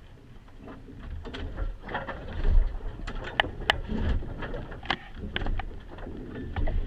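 Uneven low rumble with scattered sharp clicks and knocks, the noises of a small sailboat's cabin.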